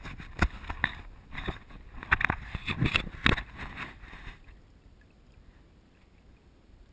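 Kayak paddle strokes splashing and dripping close by, a run of irregular splashes for about four seconds, then much quieter.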